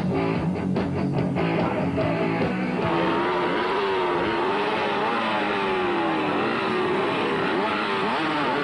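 Rock music with electric guitar for the first couple of seconds, then several small dirt-bike engines revving and running together, their pitches rising and falling against one another.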